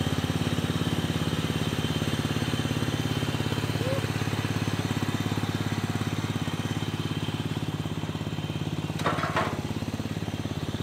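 Ride-on lawn tractor's small petrol engine running steadily as it drives along towing a metal arena drag, with a brief clatter near the end.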